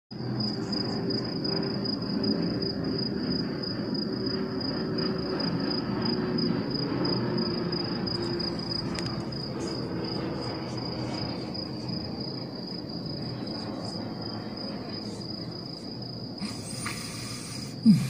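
Insects trilling steadily at one high pitch over a low rumbling background, with faint scattered ticks. Near the end comes a brief burst of hiss and then a single short, loud thump.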